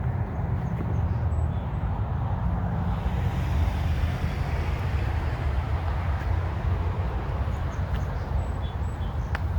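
Steady roar of road traffic: a dense low rumble with a hiss above it that swells a little around four seconds in.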